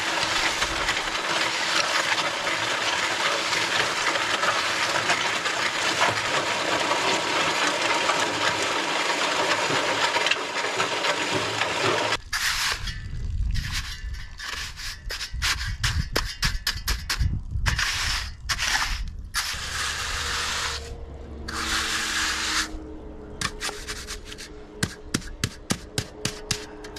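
A Mud Mixer concrete mixer running, with wet concrete pouring from its chute and being raked into a form, a dense steady rasping. About twelve seconds in, this gives way to the intermittent scraping strokes and clicks of a hand float working the surface of the wet concrete.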